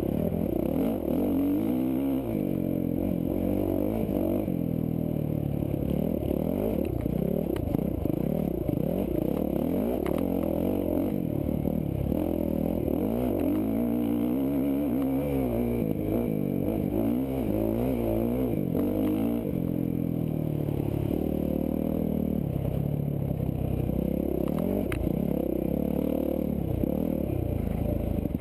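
Dirt bike engine being ridden hard, its pitch rising and falling again and again as the throttle is worked, with clatter from the bike over rough ground.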